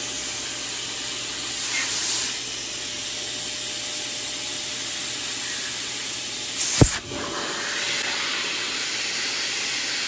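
WAP GTW Inox 20 1600 W wet/dry vacuum running in blower mode, a steady rush of air from the hose nozzle blowing up a balloon held over it. One sharp bang a little under seven seconds in.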